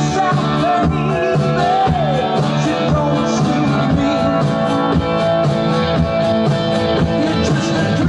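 Rock music with guitar and singing, played loud with a steady beat.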